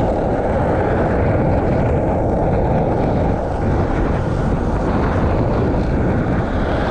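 Skateboard wheels rolling fast downhill on rough, cracked asphalt: a loud, steady rumble mixed with wind buffeting the microphone.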